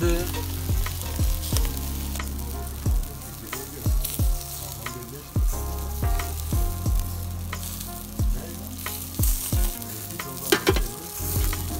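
Chicken and meat patties sizzling and crackling on a charcoal grill, over background music with repeated bass drum hits and deep held bass notes.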